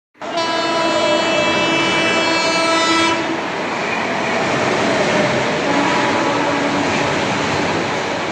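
Train horn blowing one loud, steady blast of about three seconds, then the steady noise of the moving train, with a fainter tone coming through briefly past the middle.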